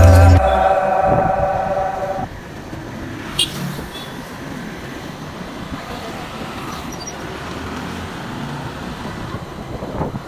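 Background music fading out over the first two seconds, then wind and road noise from a moving motorcycle, with traffic around it. One short click about three and a half seconds in.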